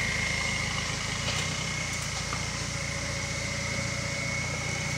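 Turbo-diesel engine of a Toyota 4Runner running steadily at low revs as the truck crawls over rocks, with a steady high whistle above the rumble.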